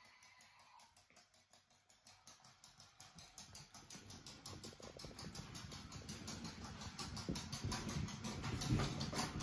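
Battery-powered walking toy unicorn's mechanism clicking quickly and evenly as it walks, growing louder from about two seconds in.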